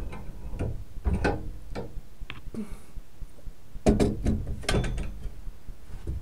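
Heavy metal tower-clock parts knocking and clanking as a tight-fitting piece is worked into place in the clock's frame and gearing. Several separate knocks, the loudest pair about four seconds in.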